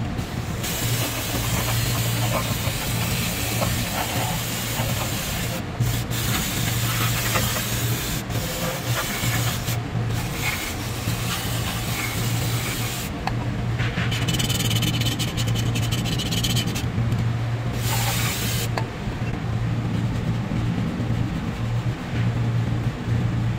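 Compressed-air spray gun blasting into a manual transmission's bellhousing to clean it, hissing hard with a few brief breaks when the trigger is let go and softer over the last few seconds, over a steady low hum.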